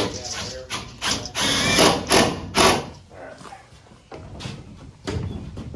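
A power tool running in several short loud bursts between about one and three seconds in, after a sharp click at the start, then quieter work noise.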